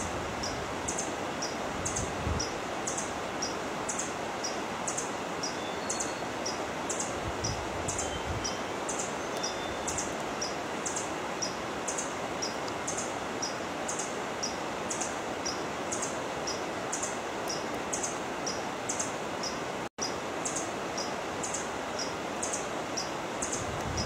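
Forest ambience: a steady hiss, with a thin, high chirp repeated evenly about twice a second, alternating between two pitches. The sound cuts out for an instant near the end.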